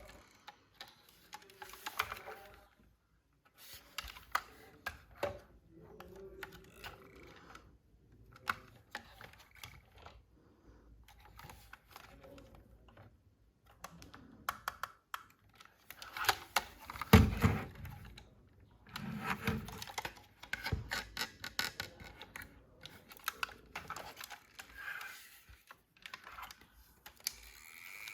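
Hands handling plastic toy parts and packaging: irregular clicks, taps and light rustles, with a louder cluster of knocks a little past halfway.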